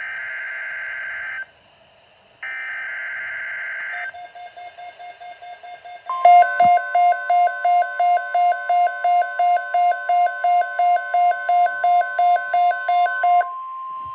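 Emergency Alert System broadcast on NOAA Weather Radio: two SAME header data bursts, each a harsh digital screech of about a second and a half, a second apart. About six seconds in, the steady 1050 Hz weather radio warning tone begins, with an alarm beeping over it about two and a half times a second. The beeping stops near the end and the tone carries on alone.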